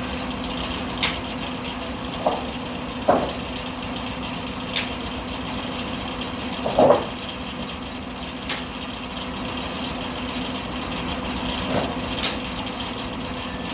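Steam-traction-engine-driven sawmill machinery running with a steady hum, with sharp clicks about every four seconds and a few short clunks, the loudest about seven seconds in.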